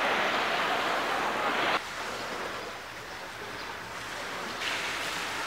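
Seawater lapping and splashing right at the microphone, a dense rushing noise that cuts off suddenly about two seconds in. A softer, steady sea-and-wind hiss follows, and the rushing returns near the end.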